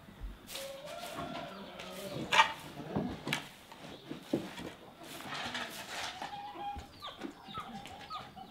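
Chickens clucking in a farmyard, with the scrapes and sharp knocks of a broom being worked over the ground.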